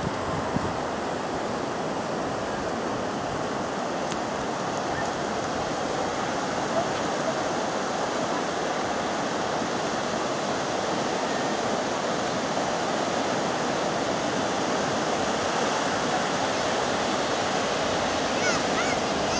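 Sea surf breaking and washing up a sandy beach, a steady rushing noise.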